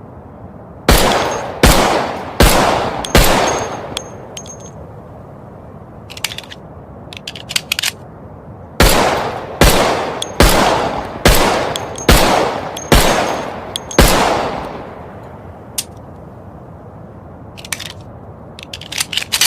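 Colt M1911 pistol firing in two strings: four shots about three-quarters of a second apart, then, after a few light metallic clicks, seven shots at about the same pace, each shot ringing out briefly. More light clicks come near the end, over a steady hiss.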